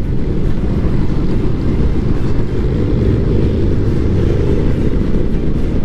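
Motorcycles running at freeway speed with wind rushing past the rider's microphone: a steady, loud, low rumble that does not change.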